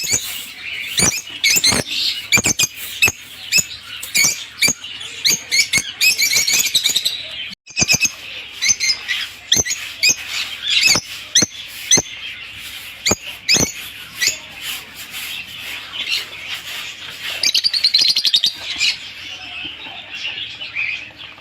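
Lovebirds chirping rapidly and almost without pause, with many high calls overlapping, mixed with frequent sharp clicks. The sound breaks off for a moment about seven and a half seconds in.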